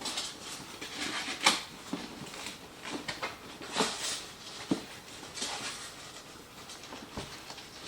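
Handling of flat-pack furniture parts and foam packing: rustling and scraping with a few sharp knocks as pieces are moved and set down.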